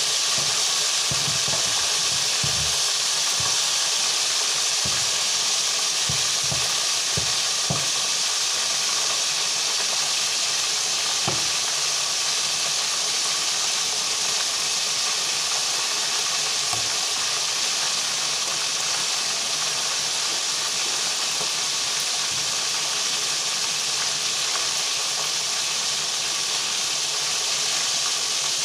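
Hot oil sizzling steadily in a wok as food fries. There are a few soft low knocks from handling the pan and spatula, most of them in the first eight seconds or so.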